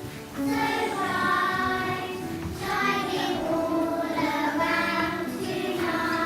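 Children singing a song with music, in phrases of about a second with short breaks between them.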